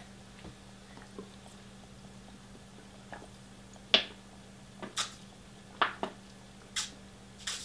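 Drinking water from a 1.5-litre plastic bottle through a sports cap: faint clicks of the cap near the start, then from about four seconds in a run of short, sharp gulping and plastic sounds about once a second.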